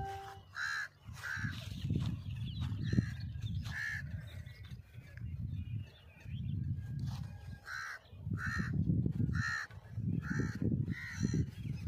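Crows cawing: about ten short caws at uneven intervals, coming more often in the second half, over a low rumble that comes and goes.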